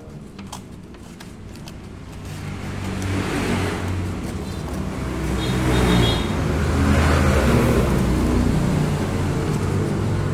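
A motor vehicle's engine running, growing louder over the first few seconds and then holding steady, with a few faint clicks at the start.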